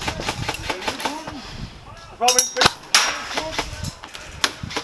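Airsoft guns firing: a scatter of sharp pops, a few of them sounding in quick succession about two to three seconds in and another near the end, with players' shouts in between.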